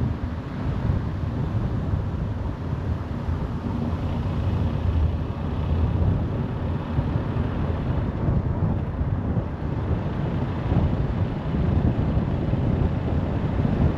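Car travelling at motorway speed: a steady low rumble of road and tyre noise with some wind noise.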